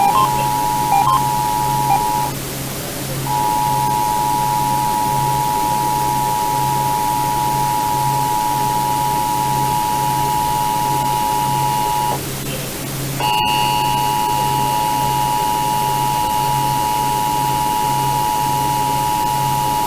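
Emergency Alert System two-tone attention signal (853 and 960 Hz) blaring steadily over a radio receiver, cutting out twice for about a second, with a sharp click about 13 seconds in after which fainter higher tones join it; it announces that an EAS test message follows. Steady hiss lies underneath.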